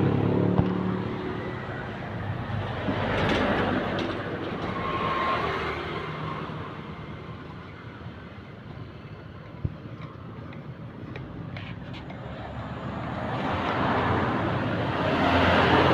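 Road traffic passing by, swelling and fading twice, with a few small clicks near the middle.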